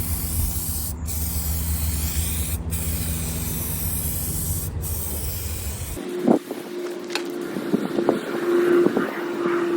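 Paint spray gun spraying a final coat of POR-15 paint, a steady hiss over a low hum. About six seconds in, this cuts off abruptly and gives way to a steady tone with scattered clicks.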